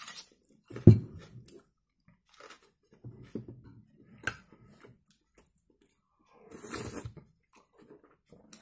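Close-up eating sounds of a man having soup: a bite about a second in, then chewing, a spoon clicking against the glass bowl about four seconds in, and a slurp from the spoon near the end.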